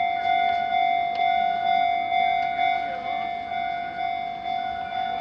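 Japanese railway level-crossing warning bell ringing: an electronic clanging tone repeating steadily, a little under twice a second.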